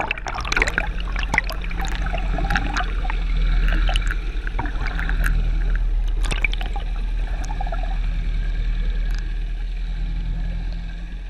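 Water heard from beneath the surface: bubbles gurgling and crackling over a steady low rumble.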